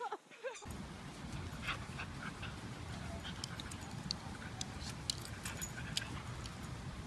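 Two dogs play-fighting, giving short faint yips and whines among small scattered clicks over a steady low outdoor rumble.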